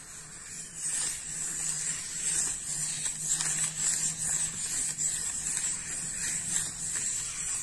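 A soft 10B graphite pencil scratching across paper in continuous looping strokes: a hissy scraping that swells and fades as the strokes go, over a faint steady low hum.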